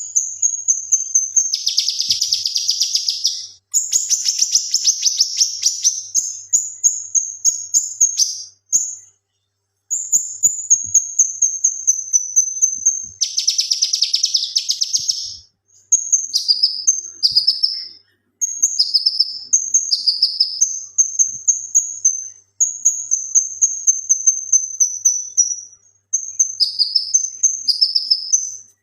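Male cucak kinoi singing: fast runs of high repeated notes broken by several dense, buzzing trills and short pauses, with falling slurred phrases in the second half.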